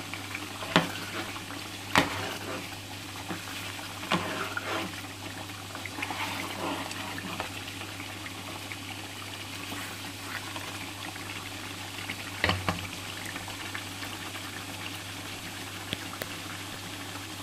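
Mutton curry bubbling and simmering in a pot while a metal ladle stirs through the gravy, knocking against the pot a few times.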